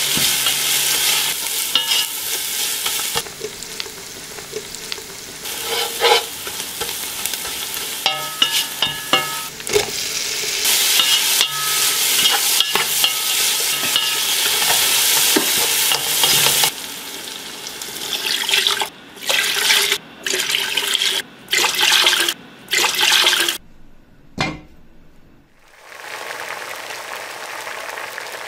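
Oil sizzling as onions with coriander and mint, and then a tomato masala, fry in a nonstick pot, stirred with a wooden spatula that scrapes across the pan. Late on the sizzling comes in short bursts with sudden cuts, then drops away briefly.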